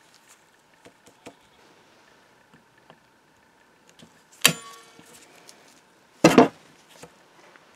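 Pliers clamped on a stuck pin in a cast-iron eyelet press are yanked: two sharp metal clanks about two seconds apart, the first ringing briefly, after a few light handling clicks.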